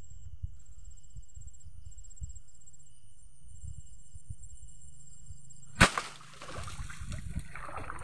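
A pole swung to strike a white-breasted waterhen roosting in streamside branches: one sharp whack nearly six seconds in, a lighter knock right after, then a couple of seconds of rustling and thrashing. Insects trill steadily in the background.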